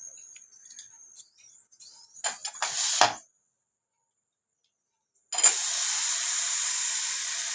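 Aluminium pressure cooker hissing steam loudly and steadily from its whistle valve, starting suddenly about five seconds in, as water is poured from a ladle over the weight. Before it, a faint high whistle and a few clattering knocks around two to three seconds in.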